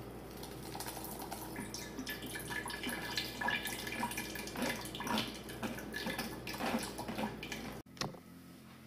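Thick fermented chili sauce being poured and worked through a wire-mesh strainer: wet dripping and slopping with irregular scraping against the mesh. It cuts off suddenly near the end.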